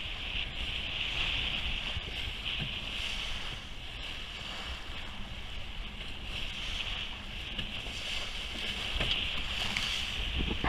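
Water rushing along the hull of a Dufour T7 sailboat under sail through choppy sea, with wind buffeting the microphone. A steady hiss and low rumble run throughout.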